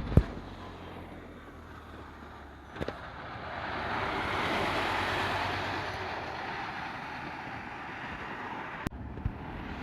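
A road vehicle passing, its noise swelling through the middle and fading, with a few short low thumps of wind on the microphone.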